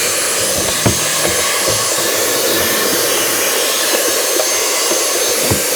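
A separate vacuum cleaner running steadily with a high whine, sucking dust and crud out of the cordless vacuum's empty dust-bag compartment. Its nozzle gives a few short knocks against the plastic.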